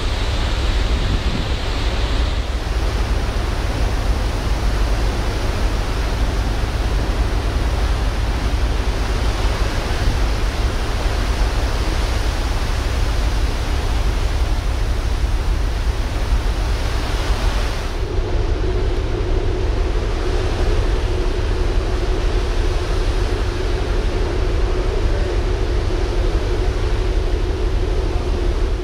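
Wind buffeting the microphone and the rush of rough sea, heard from a ferry's open deck as a loud, steady noise with heavy rumble. From about 18 s in a low steady hum joins it.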